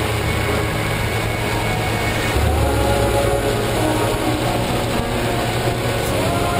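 Motorcycle engine running steadily at road speed, with wind and road noise rushing past. Its note changes about two and a half seconds in.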